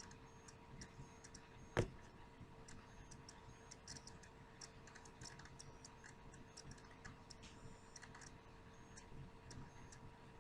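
Near silence: faint scattered small clicks over a steady low hum, with one sharp click about two seconds in.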